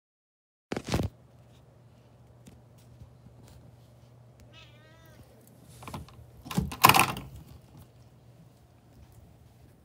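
A sharp knock just under a second in, then a cat meows once, a short call that wavers in pitch, about halfway. Soon after come knocks and a loud rattle as a wooden door with a glass panel is pushed open by the cat; the rattle is the loudest sound.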